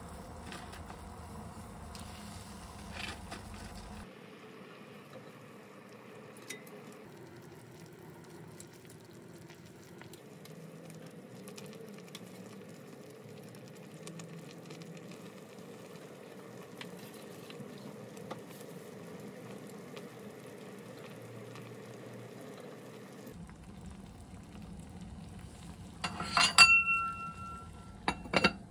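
Broth simmering in a clay donabe pot, a steady soft bubbling. Near the end the ceramic lid clinks against the pot several times with a short ringing tone.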